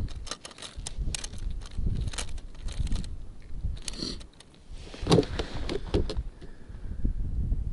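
A rapid run of sharp clicks, rattles and crackles of gear being handled, over a low rumble, thickest in the first three seconds and again around five seconds in.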